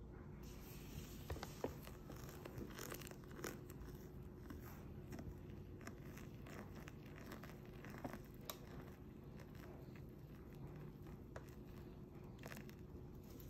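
Hot water pouring in a thin stream from a gooseneck kettle onto fresh coffee grounds in a ceramic cupping bowl, faint, with scattered small crackles and ticks.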